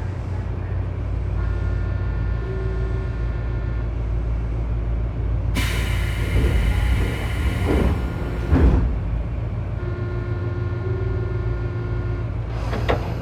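Tobu 9000 series commuter car at a station stop: steady low drone of its underfloor equipment. About five and a half seconds in comes a loud hiss of compressed air from the pneumatic system, lasting some three seconds and ending with a thump, and there is a sharp click near the end.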